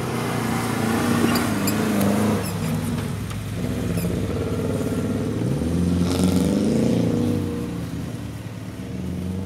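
A small 4x4 off-roader's engine revving up and down as it climbs a steep dirt trail under load, with the revs climbing again about six seconds in.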